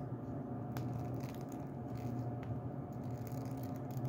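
Steady low hum of a quiet room with a few faint clicks and taps of objects being handled near the microphone.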